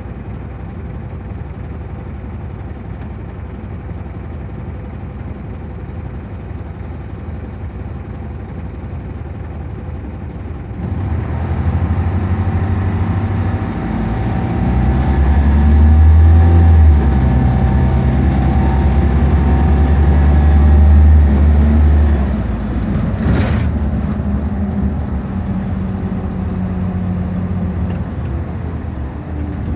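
Diesel bus engine heard from inside the passenger cabin: idling at first, then from about eleven seconds in pulling away, much louder for about ten seconds as it accelerates, before easing back to a quieter run. A single sharp knock or rattle comes a little after the engine eases off.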